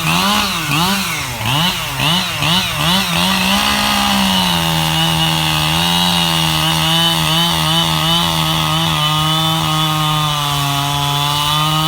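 Echo CS-7310P two-stroke chainsaw with a 24-inch bar, revved in quick blips for the first few seconds, then held at a steady, slightly lower pitch as it cuts through a log under load.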